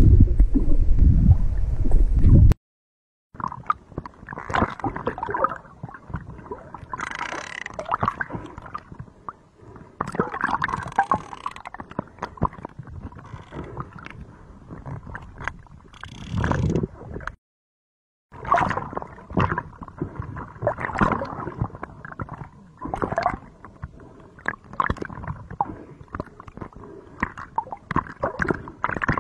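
Field sound at sea from around a rescue boat: a loud, low rumble of wind and boat at first, then, after cuts in the audio, water sloshing and gurgling with many short knocks and scrapes.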